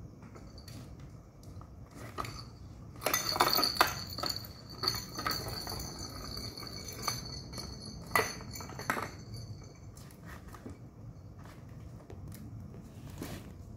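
Plastic balls rolling and clattering in the circular track under a round cardboard cat scratcher, knocked around by a kitten. The clicking and high ringing rattle comes in a busy run from about three seconds in, loudest at first, thins out by about ten seconds, and a lone knock follows near the end.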